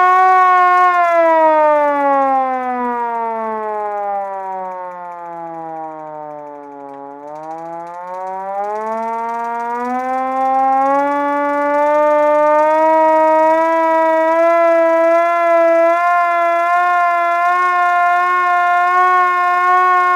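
Vintage manual fire truck siren wailing. Its steady tone falls in pitch and fades for about six seconds, then climbs back up over the next six seconds and holds steady again.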